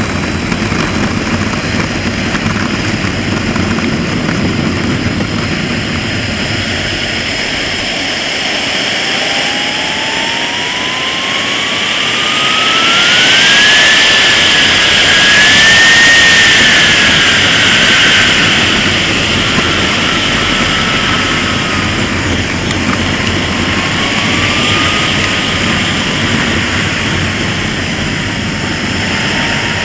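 KingTech K80 model jet turbine of an RC jet in flight, a steady high-pitched whine. It grows louder about halfway through, its pitch rising, then eases off and falls again.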